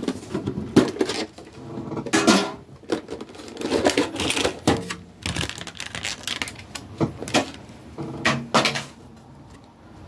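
Product packaging being handled and opened: irregular clicks, small knocks and crinkly rustles.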